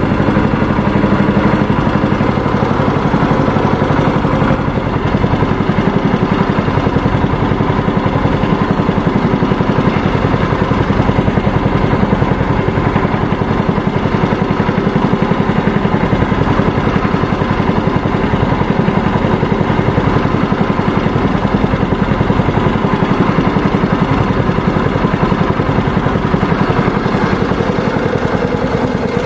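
Small petrol engine of a wooden fishing boat running steadily at trolling speed.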